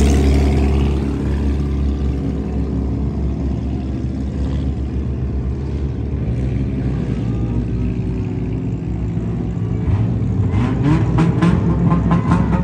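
Dirt-track race car engines running, loudest at the start as the pack goes by, then a steadier lower drone of several engines as the cars slow. Voices come in over the engines near the end.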